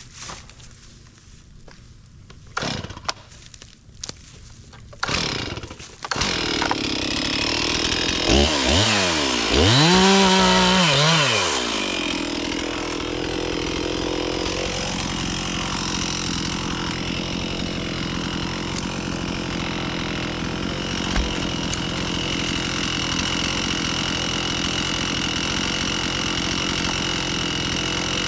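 Chainsaw being started: three short bursts, then it catches about six seconds in, its pitch sweeps up and down briefly, and then it settles into steady running.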